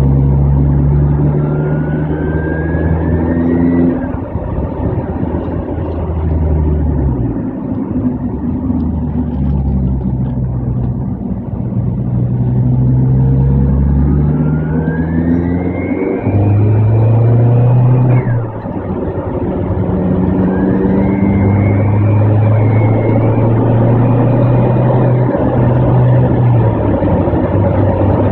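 Z20LEH 2.0-litre turbocharged four-cylinder petrol engine running, its note stepping up and down. Three times a high whistle rises in pitch and then holds as the revs climb: turbocharger noise from a failing turbo.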